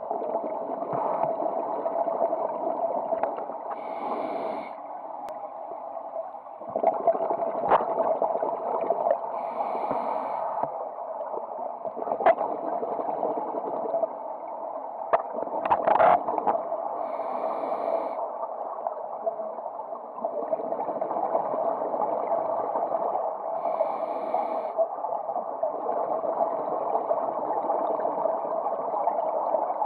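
Muffled underwater sound heard through a camera housing: a steady rush of water, with scuba regulator exhaust bubbles gurgling out about every six or seven seconds as a diver breathes. A few sharp knocks come near the middle.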